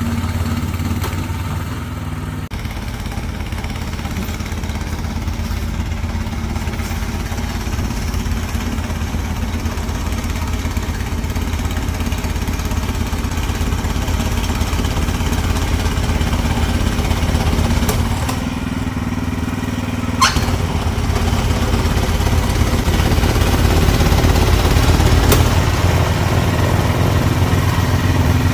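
Snow blower's gas engine running steadily as it clears snow, with a short sharp click about twenty seconds in.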